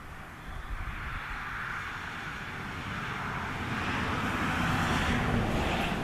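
Engine noise of a passing vehicle or aircraft: a steady rushing sound that swells over about five seconds and starts to fade near the end.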